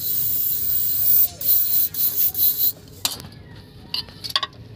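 Aerosol spray can hissing in several short bursts onto the cable fitting under the van, stopping about two-thirds of the way through. Sharp metallic clicks and taps follow as the cable hardware is worked.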